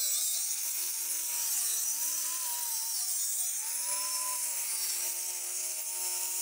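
Compact handheld circular saw running and cutting through deck boards along a curved line. Its motor pitch wavers up and down as the load on the blade changes.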